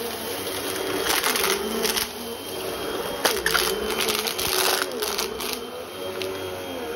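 Vacuum cleaner running, its motor pitch wavering up and down, with several short bursts of rushing hiss.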